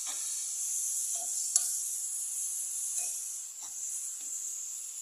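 Tomato salsa sizzling and hissing in a hot pan after a splash of water has been added, with a few light clicks and taps, the sharpest about a second and a half in.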